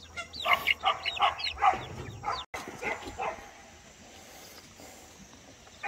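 A quick run of short, sharp animal calls, several a second, for about two seconds, then a sudden break and a quieter stretch with a few fainter calls.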